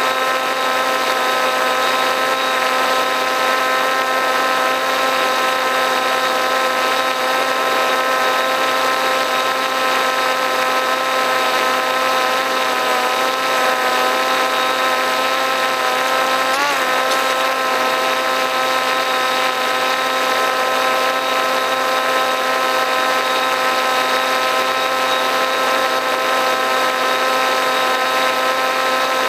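RC plane's motor and propeller heard from the onboard camera in flight, a steady whine of several tones over rushing air noise. The pitch wavers briefly twice, around the middle.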